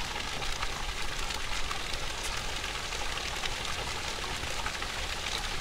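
Spring water running and splashing steadily from the holy spring's outlet.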